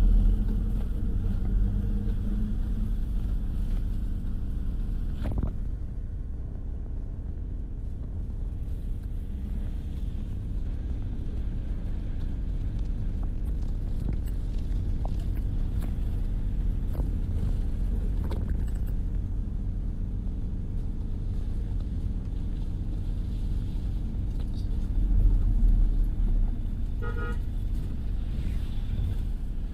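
Steady low rumble of a car driving along a road. A vehicle horn toots briefly near the end.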